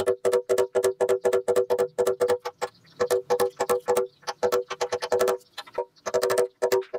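Rapid tapping on a punch held against a steel motorcycle gas tank, about four strikes a second with two short pauses. Each strike makes the tank ring at the same steady pitch. The punch is dimpling the metal around a rust pinhole so the hole can be filled and levelled.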